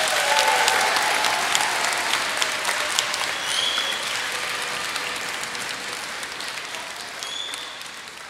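Audience applauding, with a few cheers near the start, the clapping gradually dying away.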